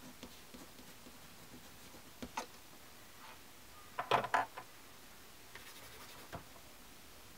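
Faint scratching of a burnishing tool's point pressing a line into paper, then a few light clicks and clatters of small hand tools being handled, the loudest cluster about four seconds in.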